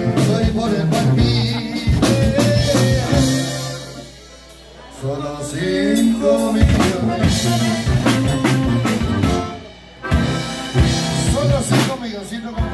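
Live norteño band playing: button accordion, sousaphone (tuba) bass, guitar and drum kit. The band drops out briefly twice, about four seconds in and again just before ten seconds, then comes back in.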